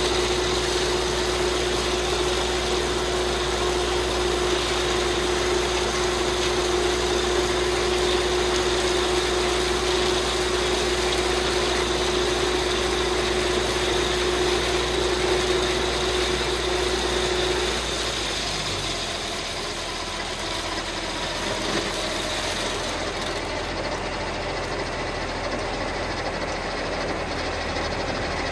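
Belarus MTZ-82 tractor's four-cylinder diesel engine running steadily, heard from the cab. About two-thirds of the way in, a steady whine stops and the low rumble drops, leaving the engine running a little quieter.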